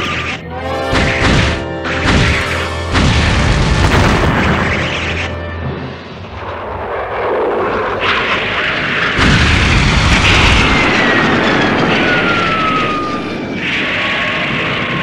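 Kaiju-fight soundtrack: music mixed with heavy booms and crashes that start and stop abruptly, and a long falling whistle-like tone in the last few seconds.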